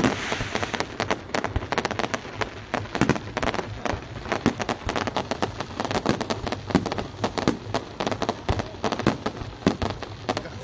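Fireworks display: a dense, irregular barrage of shell bursts and crackling, with sharp bangs following one another several times a second.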